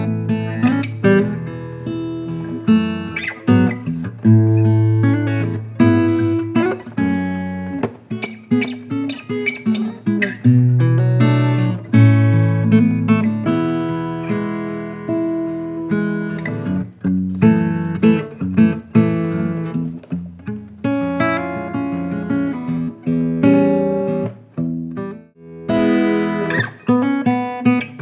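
GWG Guitars 00-size acoustic guitar with a Sitka spruce top and mahogany back and sides, played as a run of plucked notes and strummed chords with a full bass, showing off the guitar's tone.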